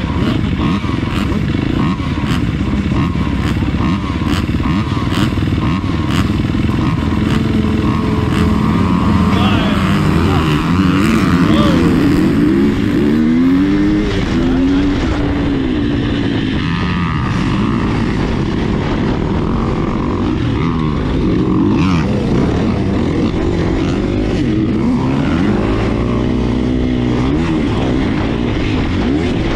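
Motocross dirt bike engines at a race start: the rider's Husqvarna is held on the line, then revs hard and climbs up through the gears from about nine seconds in, its pitch sweeping up and falling back again and again, with other bikes running close by.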